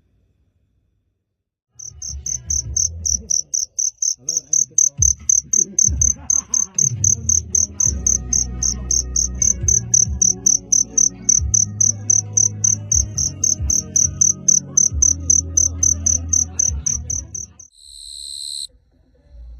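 A cricket chirping in a fast, even, high-pitched pulse train of about four chirps a second, which starts suddenly a couple of seconds in, over a low background rumble. It stops near the end, and a short separate high tone follows.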